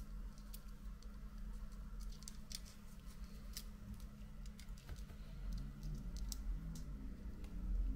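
Faint, scattered light clicks and taps of small repair tools against an iPhone's internal parts as the front camera is fitted into place, over a steady low hum.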